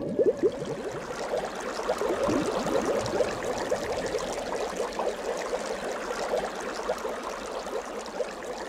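Bubbling-water sound effect: a continuous stream of small bubbles popping and gurgling, thickest in the first half-second.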